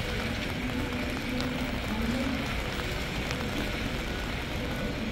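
Steady rain falling, with a few faint raindrop ticks over a low city rumble.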